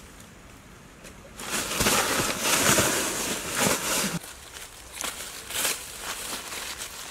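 Dry leaf litter crunching and rustling loudly as a person scrambles on the forest floor, starting about a second and a half in and lasting close to three seconds, with low thumps of feet. Lighter scattered crackles of leaves and twigs follow.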